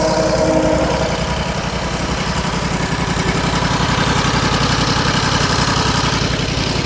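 Sawmill's engine running steadily, with an even low pulsing.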